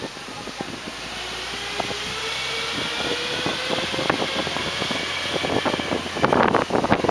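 A jeepney running along a bumpy dirt road, heard from its roof, with a slowly rising whine as it gathers speed and scattered knocks and rattles from the bumps. Near the end, loud wind buffets the microphone.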